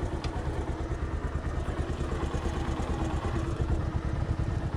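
Single-cylinder motorcycle engine idling steadily, with a quick, even beat of exhaust pulses.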